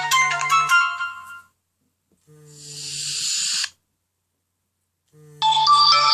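Nokia N97 Mini ringtones with the vibration motor buzzing in pulses underneath. One electronic melody ends in a run of notes that fades out. About halfway in, a hissy whoosh swells up over a second and cuts off, and near the end a new ringtone melody starts.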